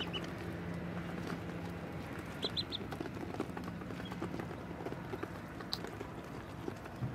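Yellow ducklings peeping in a few short high chirps, three close together about two and a half seconds in, over many small taps of bills pecking feed from a dish.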